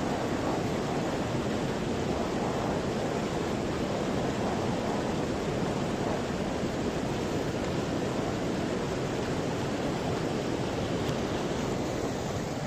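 Fast-flowing river water rushing and churning with whitecaps, a steady even rush of water noise.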